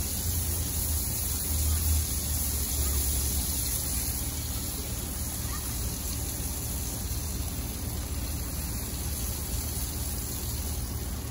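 Squeeze butter sizzling on a hot Lodge cast iron griddle over a propane grill: a steady hiss, over a low rumble that is stronger in the first few seconds.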